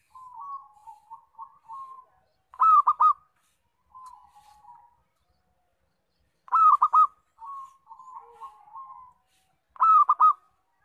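Zebra dove (perkutut) singing: three loud bursts of about three quick coo notes each, some 3 to 4 seconds apart, with softer rolling, purring coos between them.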